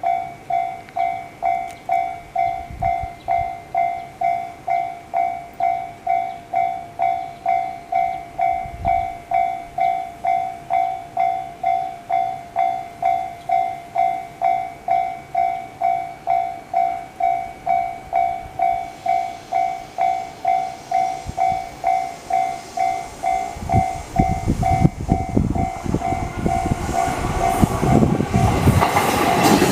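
Japanese railway level-crossing alarm on the JR Yokohama Line ringing a steady, repeating electronic clang, about one and a half strikes a second, slightly distorted. In the last several seconds a train comes through, its running and wheel noise growing louder and covering the bell.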